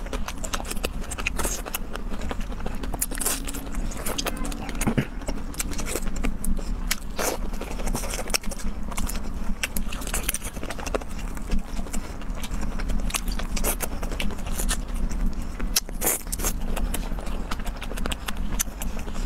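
Close-up eating sounds of a person peeling and eating shrimp: chewing and mouth noises with many short sharp clicks and crackles, over a steady low hum.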